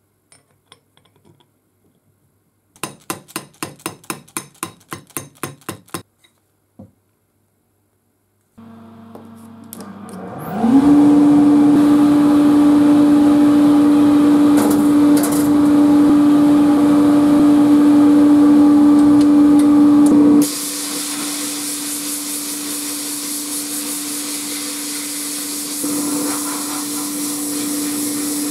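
A quick run of about a dozen light knocks. Then the sandblasting setup's motor starts, rising in pitch to a loud steady hum. About two-thirds of the way through, the hiss of abrasive blasting in the cabinet takes over while the hum carries on more quietly.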